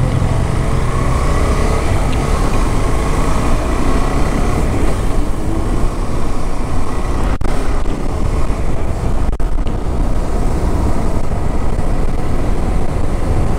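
Motorcycle engine running steadily while riding along, with two short clicks about halfway through.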